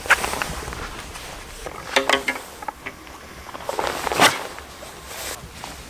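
Whoosh of a carp throwing stick (cobra) swung overhead to throw boilies out, swelling to a peak about four seconds in. Earlier there are a few short clicks and knocks as the boilies are handled.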